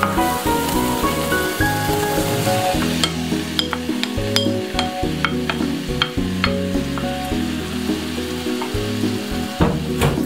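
Sizzling in a hot frying pan as diced vegetables are tipped in and stir-fried with a wooden spatula, with sharp clicks as they land and the spatula scrapes. Background music with a steady bass line plays throughout.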